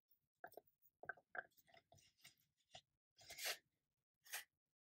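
Faint handling noises: a string of small clicks and light rustles, then two brief scrapes near the end, as a metal chain necklace is handled and pressed against a linen display bust.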